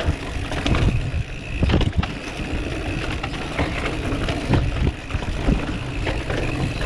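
Mountain bike rolling fast over rough ground: a steady rush of wind noise with the bike rattling and knocking irregularly over bumps.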